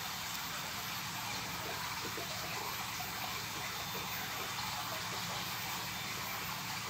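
Steady, even hiss of background noise, with only faint small sounds of a hand screwdriver turning screws into the metal top cover of a DLMS audio processor.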